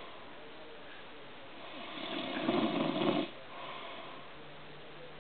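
A person snoring: one loud snore about two seconds in, lasting about a second and a half, followed by a softer breath.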